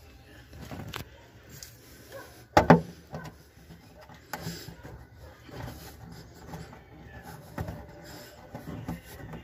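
A few scattered knocks and handling sounds, the loudest a sharp double knock about two and a half seconds in.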